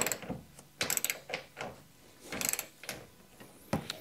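Ratchet wrench clicking in short runs, four in all, as a harness mounting bolt is wound into the threaded chassis floor.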